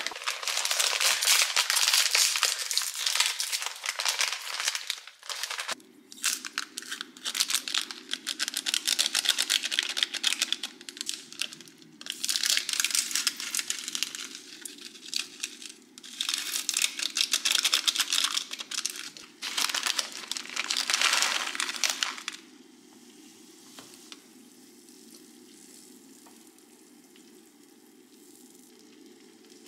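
Plastic wrapper of an instant ramyun packet and its seasoning sachets crinkling and tearing as they are handled and opened, in loud stretches with short pauses. A steady low hum comes in about six seconds in, and after about twenty-two seconds only that hum is left.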